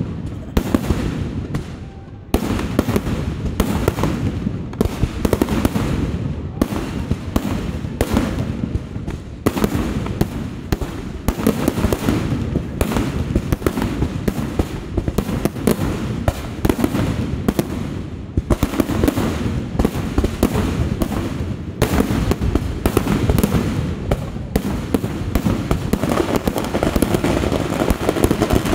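Kerala temple fireworks (vedikettu): a dense barrage of firework blasts and crackling bursts, many each second, going on without pause apart from a brief dip about two seconds in.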